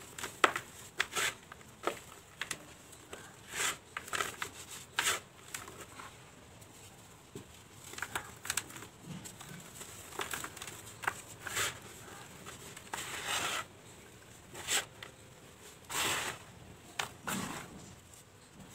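Dry red dirt lumps crumbling and crunching in bare hands, with gritty powder sifting through the fingers into a tub of loose dirt in irregular bursts, a few longer pours about three and a half, five, thirteen and sixteen seconds in.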